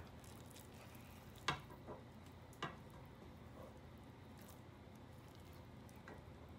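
Wooden spatula knocking and scraping against a non-stick frying pan while lifting out pieces of glazed eel: a few sharp taps between about a second and a half and three seconds in, and one faint tap near the end, over a faint steady hiss.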